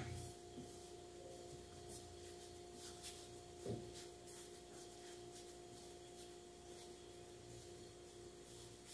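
Very faint, soft rubbing of hands rolling up flattened bread dough on a work surface, with a small knock about four seconds in, over a steady faint hum.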